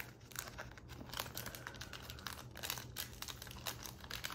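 Pokémon booster pack's foil wrapper crinkling as it is opened by hand: a faint, continuous run of small irregular crackles.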